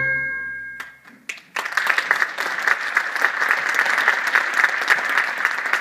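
Stage music ends on a held chord that fades out about a second in, and after a short pause a theatre audience breaks into sustained applause.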